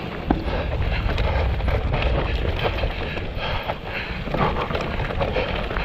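Mountain bike rattling and clattering down a rough, rocky trail, tyres crunching over stones with many small knocks and one sharp knock about a third of a second in. Heavy wind rumble on the microphone runs under it.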